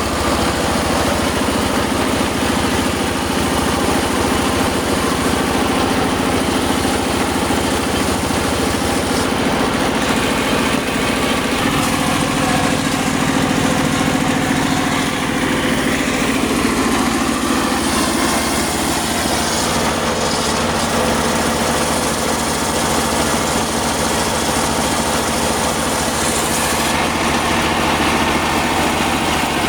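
Engine-driven circular saw machine running steadily while sawing sengon wood. Its note shifts and wavers for several seconds around the middle.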